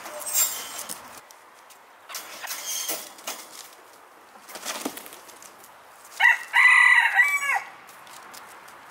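A rooster crowing once, a multi-part crow about a second and a half long starting about six seconds in. It follows a few short scuffling noises.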